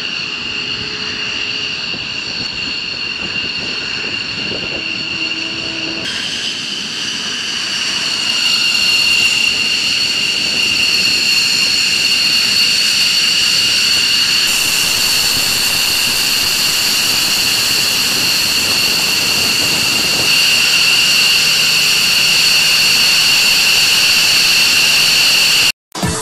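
F-15E Strike Eagle's twin jet engines running on the ground: a steady high-pitched whine over a rushing hiss, getting louder about eight seconds in and then holding, before cutting off abruptly near the end.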